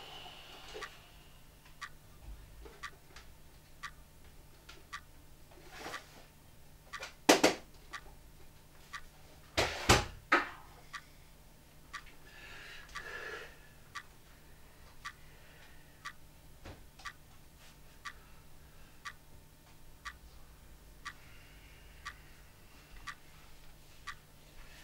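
Steady ticking of a clock, about one tick a second, with two loud knocks from the kitchen about seven and ten seconds in.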